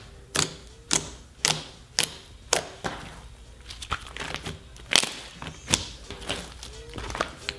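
A large batch of fluffy, glittery slime mixed with foam beads being pressed, poked and folded by hand, giving a string of sharp sticky clicks and pops, about one or two a second.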